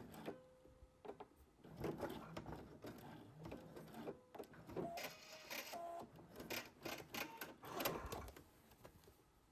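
Sewing machine stitching slowly through heavy denim with a denim needle, running in short stop-start spurts as it is eased past the zipper teeth.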